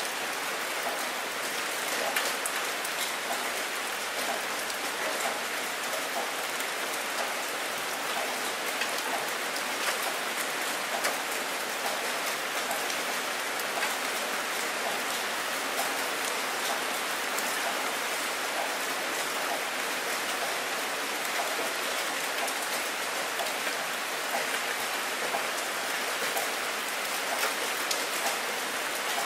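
Steady rain, a dense, even patter of countless drops with no let-up.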